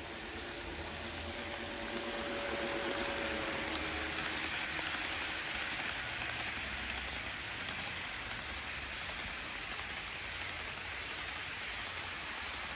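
HO scale model coal train rolling past on sectional track: a steady rush of small wheels on the rails and hopper cars clattering along, growing louder about two seconds in as the cars pass close by.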